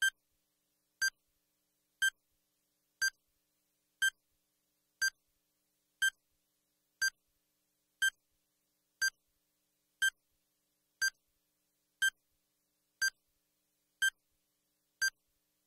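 Countdown timer beeping once a second, each beep a short, clipped pitched blip with silence in between, marking off the last seconds of a one-minute solving time.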